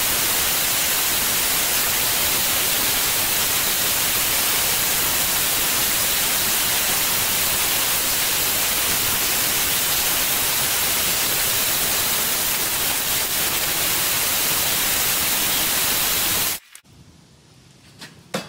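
Belt grinder running with a steel blank pressed against the belt, grinding the paint off the steel: a steady hiss with sparks flying. It cuts off suddenly near the end.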